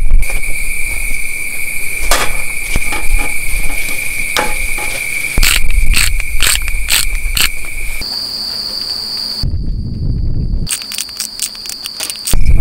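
Crickets trilling steadily in one high unbroken tone, switching to a higher-pitched trill about eight seconds in. Sharp clicks and ticks of a pepper shaker being shaken over raw beef slices cut through, in a quick run around the middle and again near the end.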